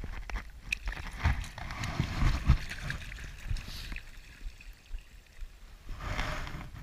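Shallow creek water sloshing and splashing at the bank, with dull knocks of handling against the camera in the first two and a half seconds and a second short splash about six seconds in.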